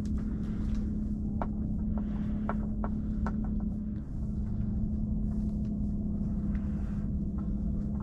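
A steady low hum over a rumble, dipping briefly about halfway through, with scattered small clicks and ticks from fishing tackle being handled and adjusted.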